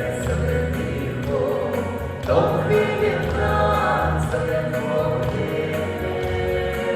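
A group of voices singing a theme song together over band accompaniment with a steady beat.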